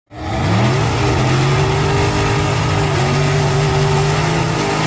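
Drag race car engine revving up within the first second and held at high revs, with the rear tyre spinning in a burnout.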